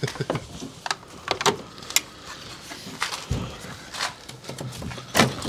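Scattered sharp clicks and light knocks from plastic car parts being handled and fitted by hand.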